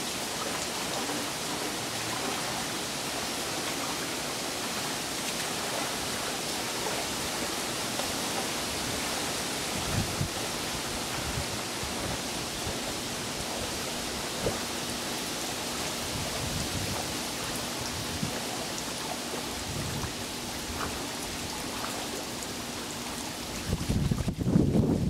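Steady, even rushing hiss of outdoor background noise, like running water or wind, with a few soft low bumps from handling; a louder cluster of bumps comes near the end.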